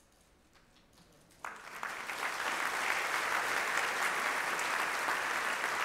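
Near silence for about a second and a half, then audience applause starts suddenly, swells and holds steady.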